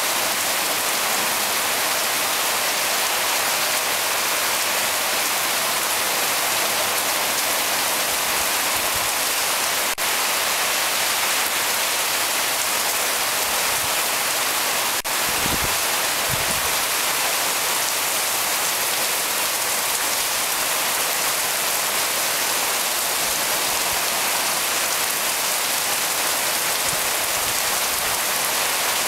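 Heavy monsoon rain pouring down steadily on a tropical beach and palms, a dense even hiss.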